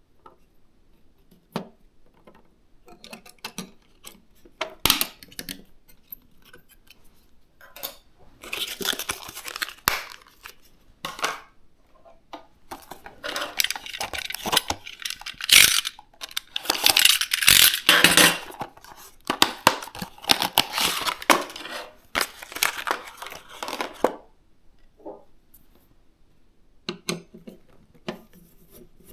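Hands handling PC components and their packaging: scattered light clicks and taps, then long bursts of rustling and tearing from about eight seconds in to near the end, with a few more clicks at the close.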